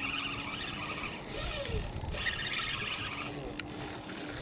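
Fishing reel whirring in two bursts of about a second each while a hooked salmon is fought on the line.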